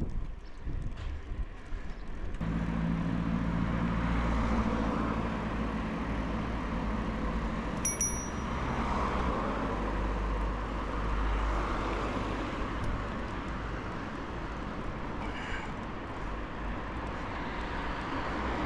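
Road traffic heard from a moving bicycle: a motor vehicle's engine hums steadily close by from a couple of seconds in, over tyre and road noise. A bicycle bell dings once, briefly, about eight seconds in.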